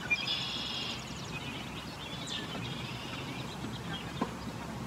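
Birds chirping: a rapid high trill lasting about a second at the start, then shorter chirps, over steady low background noise.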